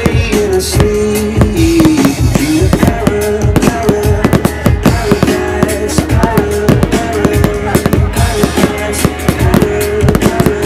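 Loud music from the display's sound system, a held melody line over a low bass, with many sharp bangs and crackles of fireworks going off irregularly through it.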